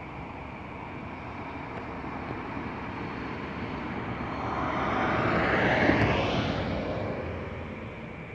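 A vehicle passing close by: a rushing noise swells, peaks about six seconds in with a falling pitch, then fades away.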